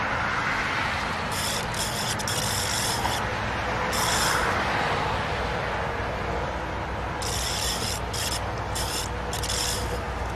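Zebra butterfly making high, scratchy rasping sounds in short bursts: a cluster of about a second and a half, a single short one, then a quick run of several more near the end, over a steady background hiss.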